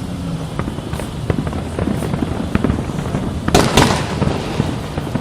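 Fireworks going off: scattered sharp pops and crackles, with a louder cluster of bangs about three and a half seconds in, over a steady background din.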